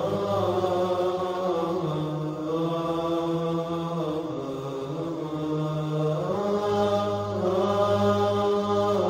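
Background vocal chant of long held notes, shifting pitch every few seconds over a steady low drone.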